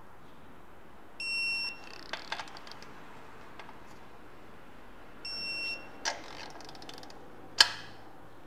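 Digital torque wrench beeping twice as each cylinder stud nut reaches its set torque of 18 foot-pounds, each beep followed by light metallic clicks of the socket on the nut. A single sharp metal click near the end is the loudest sound.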